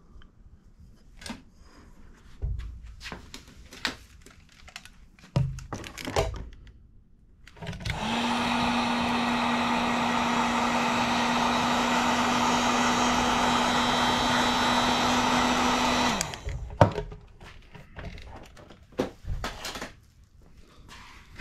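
Heat gun blowing steadily for about eight seconds, a constant motor hum under an airy hiss, switched on about eight seconds in and off about sixteen seconds in. Scattered handling clicks and knocks come before and after it, with a sharp knock just after it stops.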